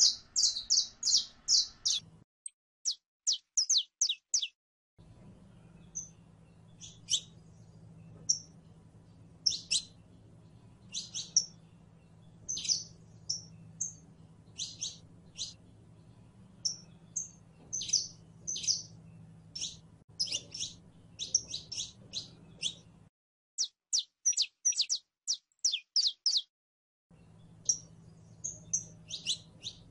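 Saffron finch singing: sharp high chirps and rapid trills in short phrases separated by brief pauses, over a faint low hum that drops out twice for a few seconds.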